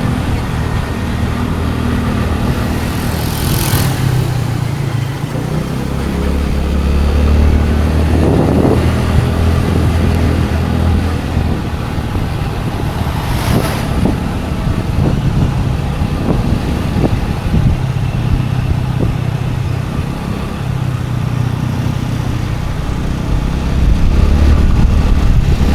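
Scooter engine running under way, its hum swelling and easing as the throttle changes, with a couple of brief rushing noises, as of passing vehicles or gusts, at about 3.5 and 13.5 seconds.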